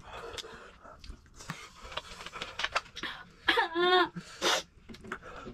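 A person breathing out hard and hissing through the mouth, with scattered small clicks and one short wavering vocal cry about three and a half seconds in.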